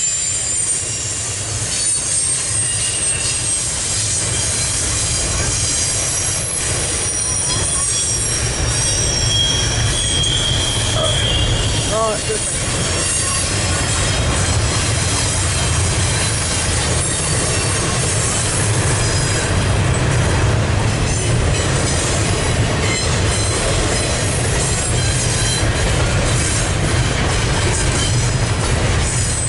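CSX double-stack intermodal freight train's well cars rolling past: a steady, heavy rumble of steel wheels on rail, with high-pitched wheel squeals coming and going, mostly in the first half.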